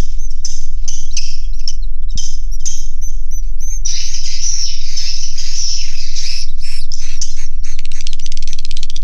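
Edible-nest swiftlets twittering inside a swiftlet house: a dense chorus of short high chirps that thickens about four seconds in, turning near the end into a fast, dry ticking rattle.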